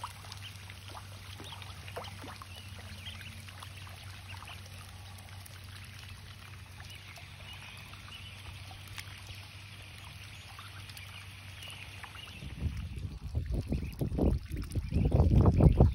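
Ducklings peeping faintly and dabbling in shallow muddy water, with small splashes and sips. About three quarters of the way through, loud low rumbling bursts take over and grow louder toward the end.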